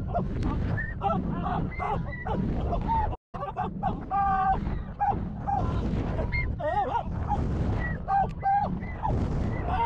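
Heavy wind buffeting on a front-row action camera riding the Mako roller coaster, with riders screaming and whooping in short cries that rise and fall in pitch. The sound cuts out for an instant about three seconds in.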